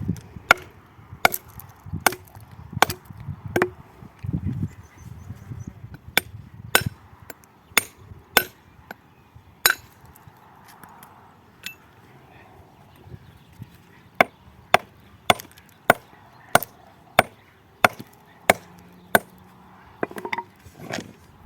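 A hammer striking stone over and over to trim and shape a building stone: sharp, irregular cracks, roughly one a second, with a few seconds of fewer blows in the middle.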